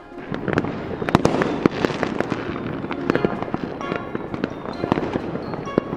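Cartoon magic sound effect: a dense, fireworks-like crackle of many sharp pops and sparkles, with a few chiming notes joining from about four seconds in.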